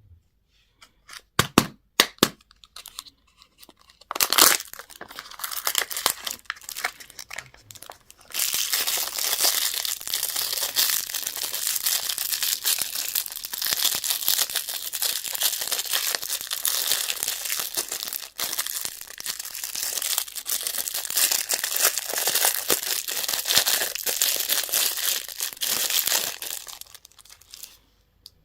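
Candy packaging being unwrapped: a few sharp snaps, then a wrapper is torn open and crinkled continuously for most of the time before it stops near the end.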